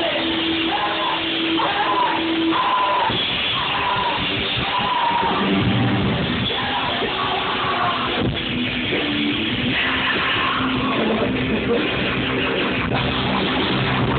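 Live punk rock band playing loudly: distorted guitars and drums, with shouted vocals.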